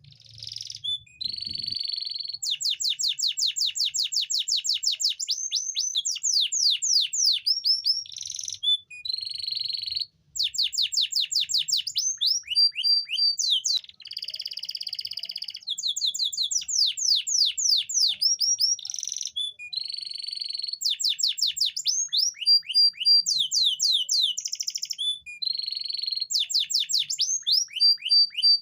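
Male canary singing a long, continuous song: fast trills of repeated falling notes alternate with rolls and buzzy held notes, in phrases split by brief pauses. It is the kind of song played to stimulate female canaries into breeding condition.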